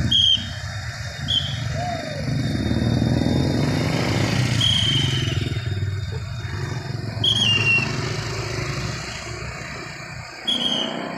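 Short blasts on a traffic whistle, five in all, the fourth falling off in pitch at its end, over the steady rumble of cars and motorcycles driving through the junction.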